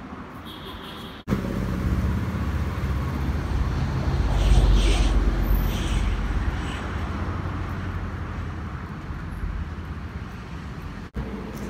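Low rumble of a motor vehicle, swelling to its loudest about halfway as it passes and then easing off, over general road noise.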